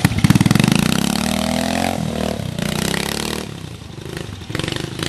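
Vintage trial motorcycle engine revving under throttle as the bike climbs, its pitch rising sharply at the start, sagging and rising again, then easing off about three and a half seconds in before another short burst of throttle near the end.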